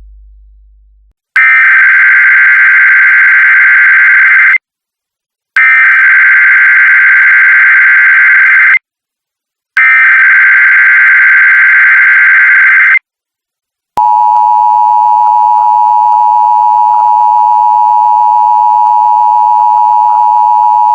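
Emergency Alert System activation: three SAME digital header bursts of data tones, each about three seconds long with a second's gap between, then the steady two-tone (853 and 960 Hz) EAS attention signal, which starts about two-thirds of the way in.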